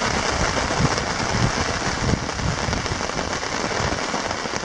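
Steady rain falling on a lake and on the surrounding rocks and trees: a dense, even hiss with no break.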